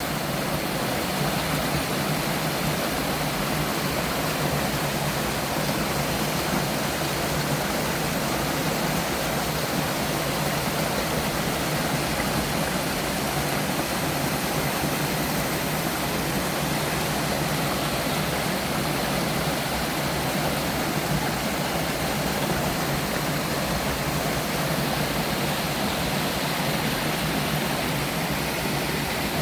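Waterfall in a mountain valley stream, the water rushing steadily and evenly throughout.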